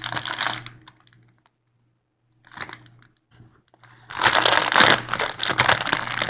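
Packaging of a squishy toy crinkling and rustling as it is being opened by hand, in two spells of handling with a near-silent pause of about two seconds between them.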